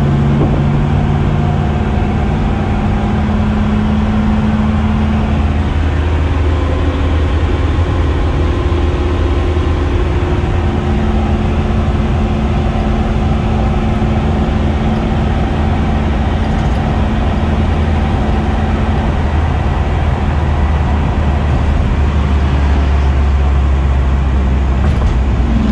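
1957 Chevrolet Bel Air's 383 cubic-inch stroker V8 with dual exhaust pulling steadily at cruising speed, a deep exhaust note with road and wind noise, heard from inside the car. The engine note holds mostly steady, shifting slightly a few times.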